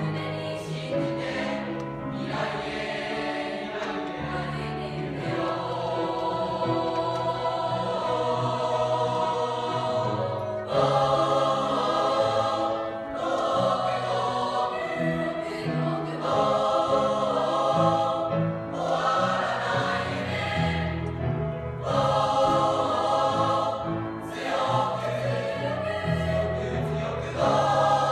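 A mixed choir of school students, boys and girls, singing together in sustained phrases. It gets louder about eleven seconds in.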